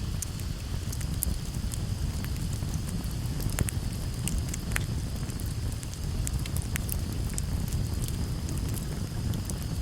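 Fire crackling: irregular sharp pops and snaps over a steady low rumble and a faint hiss.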